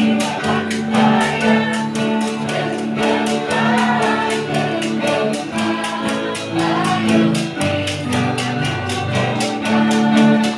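A student choir singing in harmony with held notes, accompanied by an electronic keyboard and an acoustic guitar.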